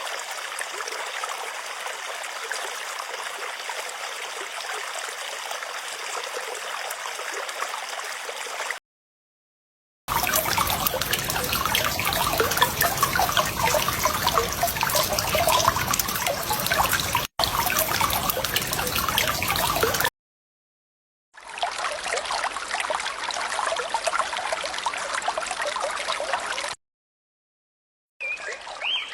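A series of separate running-water sound effects: trickling and flowing water in clips of several seconds each, cut apart by short silences. The second clip, about 10 to 20 seconds in, is the loudest and fullest.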